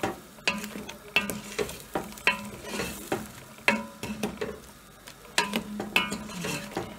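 Wooden spoon stirring chunks of meat in a thick sauce in a cooking pot, with irregular knocks and scrapes against the pot about once or twice a second. A faint sizzle from the pot comes through underneath.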